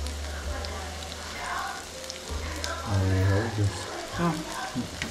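Bondas deep-frying in a wok of hot oil, sizzling and crackling steadily, with a short, louder low sound about three seconds in.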